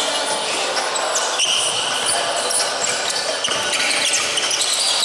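Basketball game sounds in a gym: a basketball bouncing on the court with a couple of sharp knocks, and short high squeaks, in an echoing hall.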